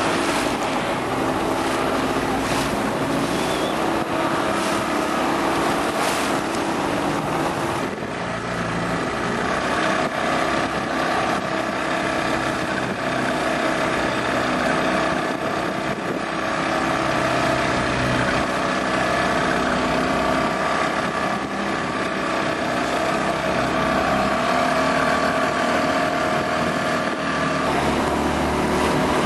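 Motorboat engine running steadily under way, with wind on the microphone and water rushing and splashing.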